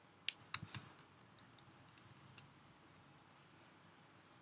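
Faint, scattered clicks of a computer keyboard and mouse: three single clicks in the first second, then a quick run of about four clicks around three seconds in.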